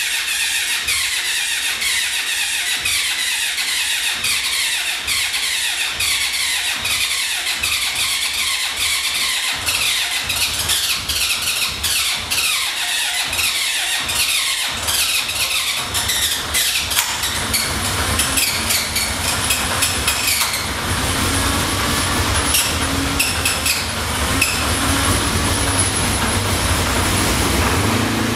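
Honda CB750 inline-four motorcycle engine running, its pitch sweeping down again and again through the first half as the revs rise and fall, then running steadier and deeper in the second half.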